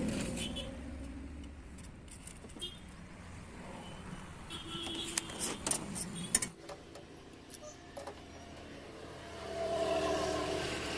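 A motor vehicle running nearby, with a low rumble that fades after the first second and a steady hum that swells near the end. About five to six seconds in come a few sharp metallic clinks as steel tubing and a steel square are handled on a steel worktable.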